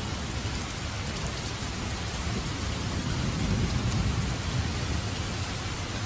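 Steady heavy rain hissing, with a low rumble of thunder swelling up about halfway through and fading away again.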